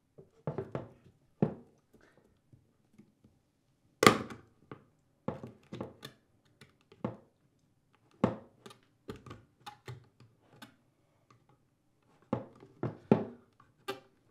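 Steel Oetiker crimping pincers gripping, pinching and breaking a single-ear hose clamp on a plastic dishwasher sump hose, making irregular sharp clicks and knocks of metal on metal and plastic. The loudest knock comes about four seconds in.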